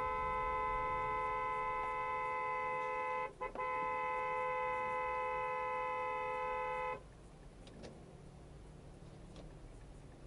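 Car horn held in one long blast, two notes sounding together, with a brief break about a third of the way in. It cuts off suddenly about two-thirds through, leaving low traffic noise. The long horn is a rebuke to a traffic violator.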